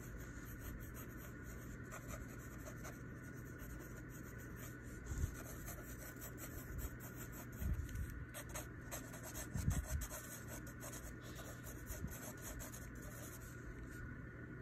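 Pencil scratching on paper in short sketching strokes. A few soft low thumps, near the middle, are the loudest sounds.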